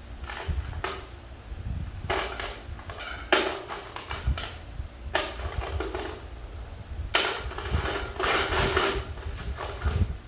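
Metal clinks and scrapes of 12 mm bolts being handled and started by hand into a transmission retainer plate, coming in several short bursts with a longer run near the end.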